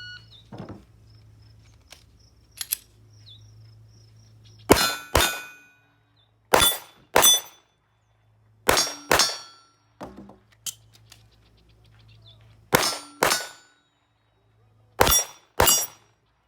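Pistol shots fired in quick pairs at steel targets, each shot followed by the clang and ringing of a struck steel plate; five pairs, a second or two apart.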